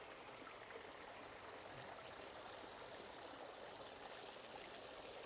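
Faint, steady running water of a small rocky stream.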